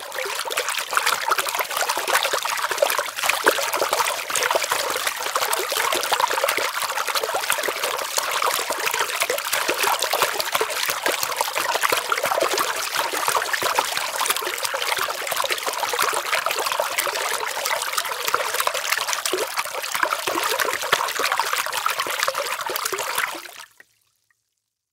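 Steady trickling, bubbling water with fine crackle throughout. It cuts off abruptly near the end.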